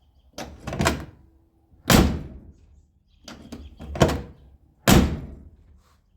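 1957 Chevrolet Bel Air door being worked to test a newly installed outer handle and latch: about six sharp latch clunks and door shuts, spaced roughly a second apart. The latch is catching and releasing as it should.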